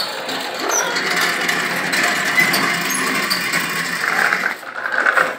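Pedal-powered toy tractor rolling over brick paving, its chain drive rattling and the metal implement trailing behind scraping along the ground. It runs steadily and fades off near the end.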